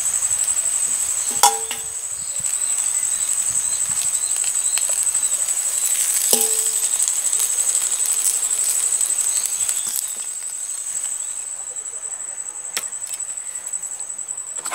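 A steady, high-pitched insect trill, like crickets, runs throughout. Metal tongs clink twice against a stainless steel bowl, about a second and a half in and again about six seconds in, and each clink rings briefly.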